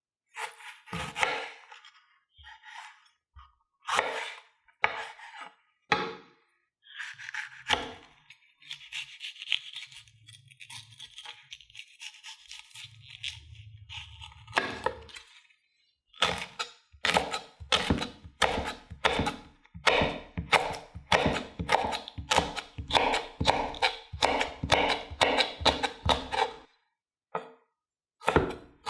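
Kitchen prep sounds: scattered knocks and clinks of utensils, some scraping, then a knife chopping on a cutting board in a quick steady rhythm, about two or three strokes a second, for some ten seconds in the second half.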